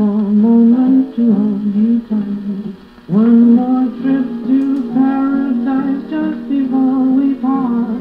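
An old big-band recording plays through the speaker of a restored Airline 62-306 Teledial tabletop radio. A melody of long held notes with sliding attacks runs over the band, with little high treble.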